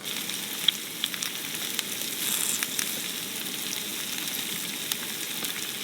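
Onion and vegetables frying in butter in a pan: a steady sizzle with scattered small pops and crackles.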